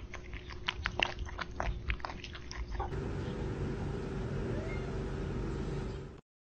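A cat eating noisily from a bowl: a quick, irregular run of clicking and smacking sounds for about three seconds. After that comes a steady background hiss with a faint hum, which cuts off shortly before the end.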